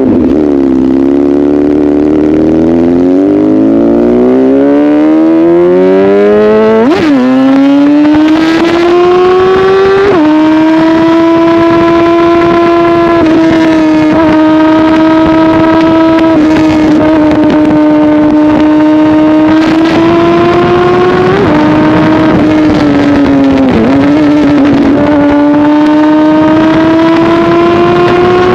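Honda CBR1000RR's inline-four through an aftermarket SC-Project exhaust, ridden under way: the revs dip and then climb over the first seven seconds, drop sharply about ten seconds in as it shifts up, then hold a steady high note with small rises and falls, climbing again near the end.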